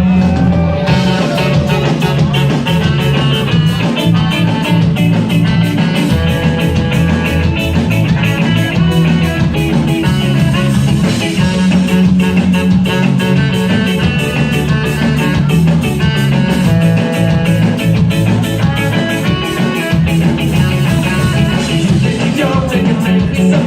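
Live rock band playing a song, with guitar over drums keeping a steady, even beat.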